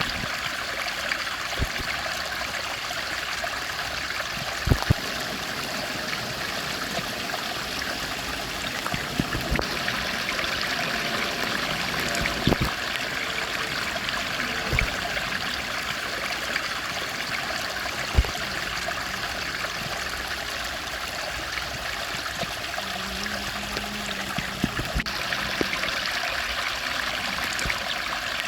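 Steady rushing of a stream flowing over rocks, with a few sharp knocks scattered through it.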